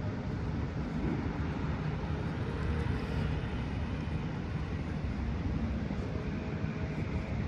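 Steady low rumble of city traffic, with no distinct passing vehicle or sudden sound.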